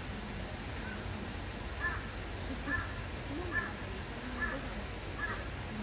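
A crow cawing five times in an even series, a little under a second apart, starting about two seconds in.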